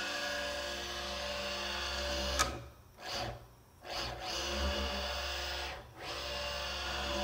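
JMC iHSV57 100-watt servo motor spinning a Taig mill's 20 TPI leadscrew at about 4000 RPM, driving the table at 200 inches per minute: a steady multi-tone motor whine in runs of about two seconds, stopping and starting again after short pauses as the table changes direction. A sharp click comes about two and a half seconds in.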